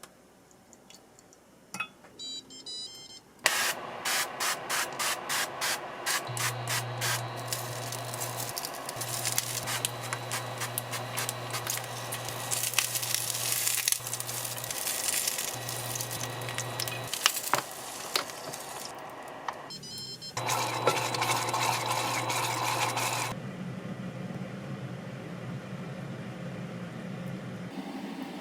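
Kitchen cooking noise: a steady hiss that starts suddenly about three seconds in with a quick run of clicks, under a low hum that cuts in and out four times. The hiss stops sharply about five seconds before the end. A few soft beeps come just before the hiss starts.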